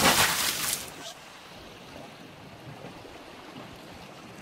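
Seawater surging and splashing among shoreline rocks, loud in the first second, then settling into a steady wash.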